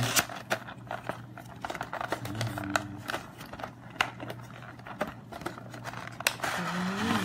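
Packaging of a boxed action figure being opened and handled: an irregular run of sharp clicks, snips and taps, with a longer rustle of plastic near the end. A low steady hum runs underneath.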